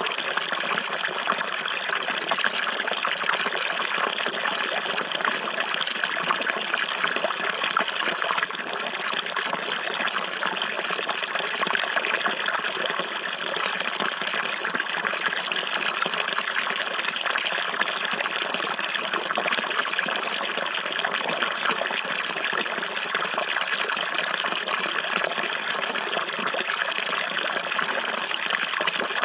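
Running water: a steady, unbroken rush and trickle, like a stream or flowing brook, with no change in level.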